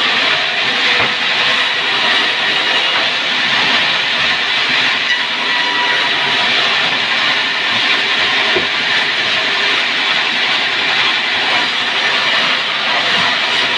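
A power tool working pine board, giving a steady, even hissing noise without breaks.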